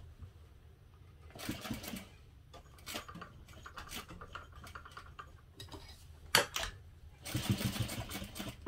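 Industrial sewing machine stitching in two short runs, with pauses between for handling: it is sewing a box stitch through the collar's layers, stopping to pivot at the corners. A sharp click comes about six seconds in.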